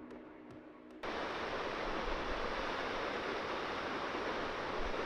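Waterfall: a steady, even rush of falling water that comes in suddenly about a second in, after a quieter first second holding only a faint hum.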